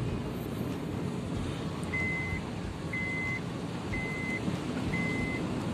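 Car driving slowly through floodwater: a steady rush of water and road noise. From about two seconds in, a high electronic beep sounds four times, about once a second.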